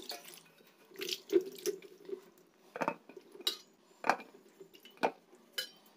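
Wet tomatoes lifted out of their wash water and dropped one at a time into an empty stainless-steel bowl: water dripping and splashing, with separate soft knocks roughly once a second.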